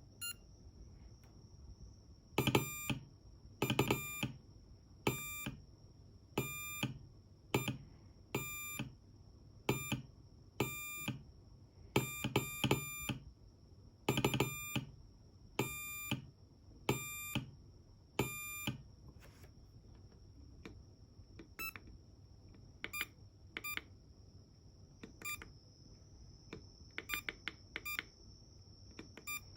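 Morse code played as beeps from an M5Stack's small speaker: a buzzy tone keyed in dots and dashes, loud through the first two-thirds, then fainter and shorter beeps near the end. A faint steady high whine runs underneath.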